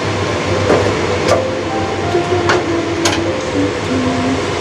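Wooden spatula stir-frying snow peas and baby squid in a stainless steel wok, the food sizzling steadily, with about four sharp knocks of the spatula against the wok in the first three seconds.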